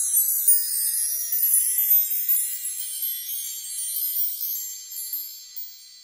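Chimes ringing, many high clear notes overlapping and gradually fading away toward the end.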